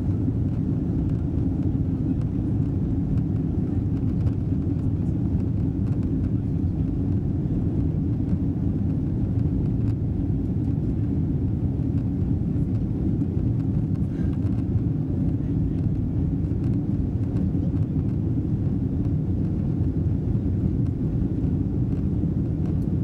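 Steady low engine and airflow noise heard inside the cabin of a Boeing 777-200 climbing out after take-off.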